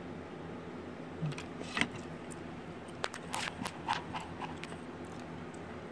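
Light, short clicks and taps over a steady low room hum: a couple about a second and a half in, then a quick run of them between three and four and a half seconds.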